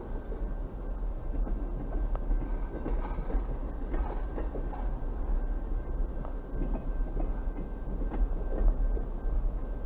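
Double-stack intermodal container train rolling slowly past on the track: a steady rumble of the freight cars, with scattered clicks and squeaks from the wheels and couplers.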